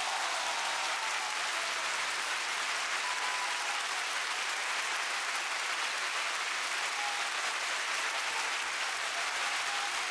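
Large crowd applauding, a steady dense clapping that holds at one level throughout.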